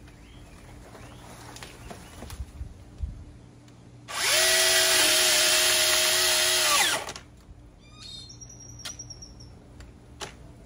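Vanpore cordless mini chainsaw's electric motor starting up and running at full speed with a steady whine for about three seconds, then winding down. A few light knocks and rustles come before it.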